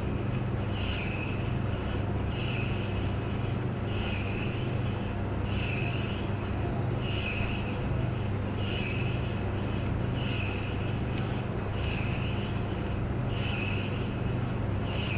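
Clothes dryer running: a steady low hum, with a higher sound coming back about every one and a half seconds and light scattered ticks.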